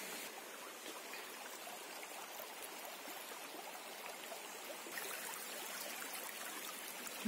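Shallow river running over stones: a steady rush and trickle of flowing water.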